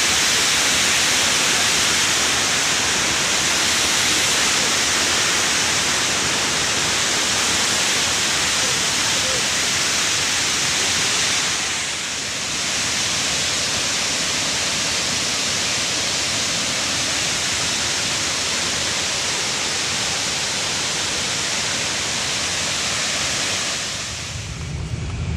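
Waterfall: the steady rush of falling water, with a brief dip about halfway through. Near the end it gives way to a low rumble.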